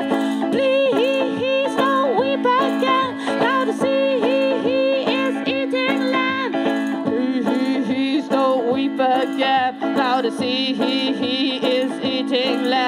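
Live banjo music: a banjo strummed in a steady rhythm with a sustained drone underneath and a wavering melody line over it.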